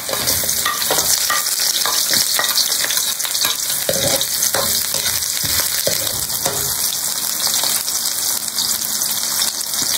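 Chopped onions and sliced garlic sizzling in hot oil in a metal wok, with a metal spatula scraping and clicking against the pan as they are stirred.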